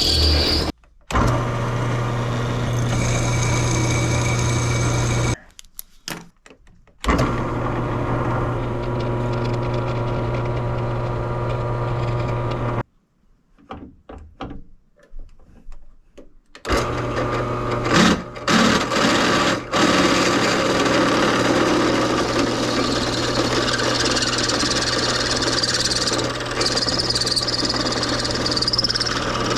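Drill press motor running with a steady hum, cut off abruptly several times.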